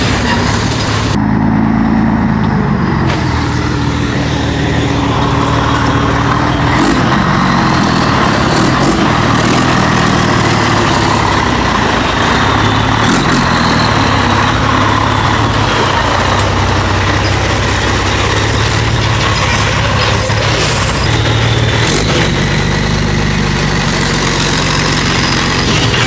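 Old Scania truck's diesel engine running steadily, its note said to sound like a plane.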